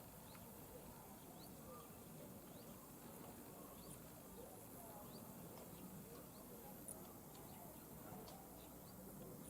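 Near silence: faint outdoor background with scattered brief, high chirps.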